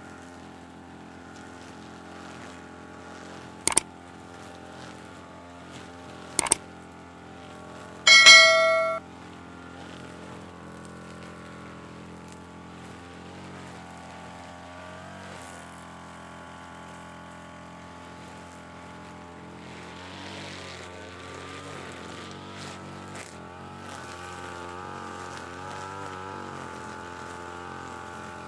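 UMA UM328 two-stroke brush cutter running steadily as it cuts grass with nylon line, its engine note wavering a little in the second half. Three louder sharp sounds stand out in the first third: two clicks and then a short ringing ding.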